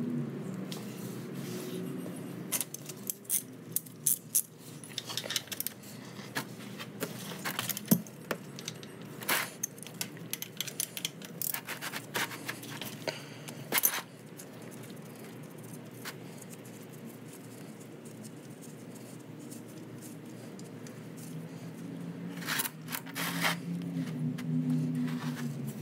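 Hand tools clinking and clicking against metal, a 3/8 ratchet and socket working the manual transmission's fill and drain plugs. The clicks come in irregular clusters: a busy run through the first half, a quieter stretch, then more clinks near the end.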